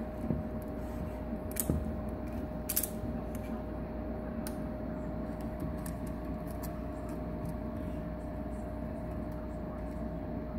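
Steady aquarium motor hum with one constant tone, with a few sharp clicks and scrapes about one and a half and three seconds in as a red-eared slider's claws and shell scrabble on the resin basking rock.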